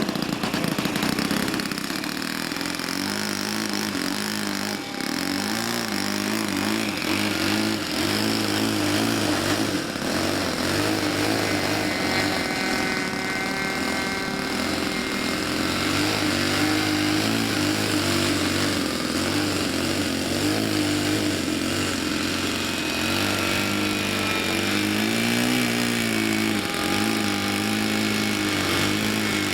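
Model airplane engine of a Seagull Spacewalker 46 running steadily in flight, its drone wavering up and down in pitch as the plane moves about and passes, with a clear dip and rise near the end.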